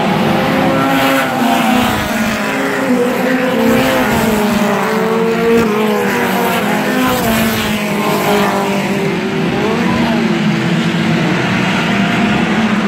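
A field of stock cars racing past on a short oval, several engines running hard at once, their pitch rising and falling as each car goes by.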